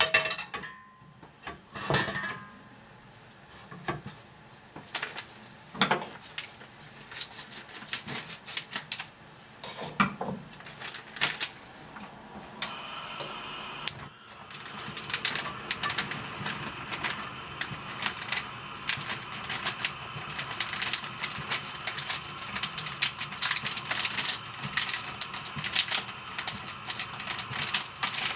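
A frying pan knocked and clattered onto the metal grate of a gas hob, then about halfway through a gas burner is turned on and lit, hissing steadily with frequent small ticks.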